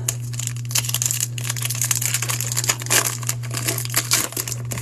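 Foil wrapper of a baseball card pack crinkling and crackling in irregular bursts as it is torn open and handled.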